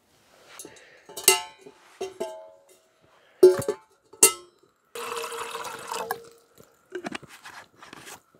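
Metal camp cookware clanking: a steel pot and its wire bail handle knocked and set down, several sharp clinks that ring briefly. About five seconds in, water is poured from a bottle into the pot for about a second, followed by a few light clicks.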